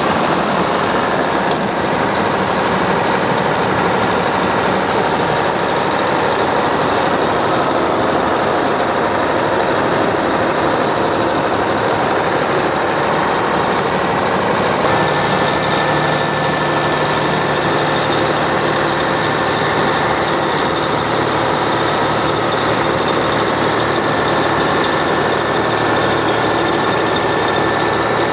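Ingersoll Rand XHP1170 portable air compressor running steadily, its Caterpillar C15 six-cylinder diesel engine and screw airend heard up close inside the open canopy. About halfway through, the tone shifts as new steady hums come in.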